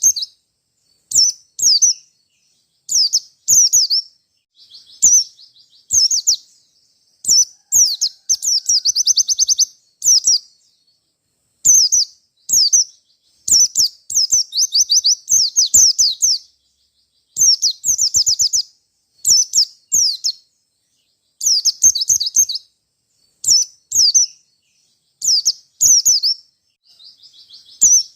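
White-eye (pleci) singing: short, high phrases of rapid chirps and trills, one every second or so, with silence between them.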